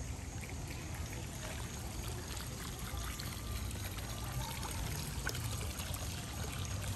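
Water pouring and trickling steadily from a stone fountain basin over its lip into the pool below.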